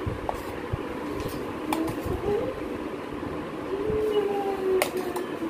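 Steel spoon scraping chopped onion and radish out of a steel bowl, with a few sharp metallic clinks against the bowl, the loudest near the end. A steady rumbling hum and faint wavering tones run underneath.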